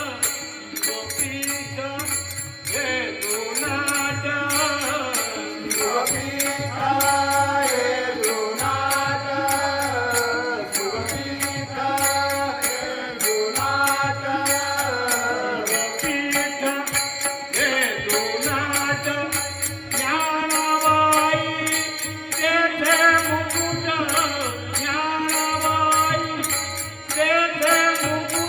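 Marathi devotional abhang (bhajan) music: a gliding melodic line over a steady low drum beat, with rapid, even ticking percussion on top.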